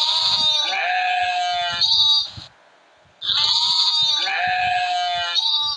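Sheep bleating twice, a long wavering baa each time with a short pause between.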